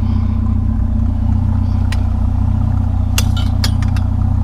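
Vehicle engine idling steadily, with a few short sharp clanks about two seconds in and a quick cluster of them near the end.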